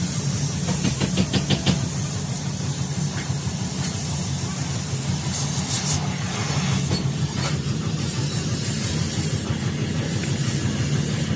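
Oxy-fuel cutting torch hissing steadily as its flame cuts into steel tube, with a short quick run of sharp clicks about a second in.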